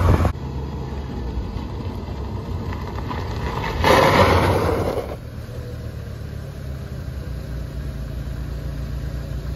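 Jeep Wrangler YJ's 2.5-litre four-cylinder engine idling steadily, with a brief louder rush of noise about four seconds in.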